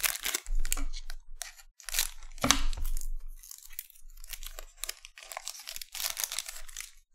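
Shiny trading-card pack wrapper being crinkled and torn open by hand, in an irregular run of crackling tears.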